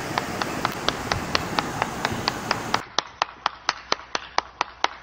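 Steady, even ticking, about four sharp clicks a second, over a hiss that cuts off about three seconds in.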